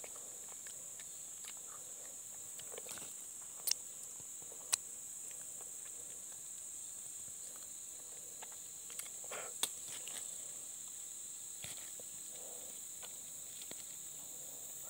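Steady high-pitched drone of forest insects, with a few sharp clicks and soft rustles from handling a split durian husk over dry leaf litter.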